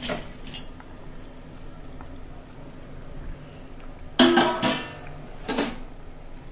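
A metal utensil clanks against a steel cooking pan as fried fish are laid into the curry. There are two sharp, ringing clanks, about four and five and a half seconds in, over a faint steady hum.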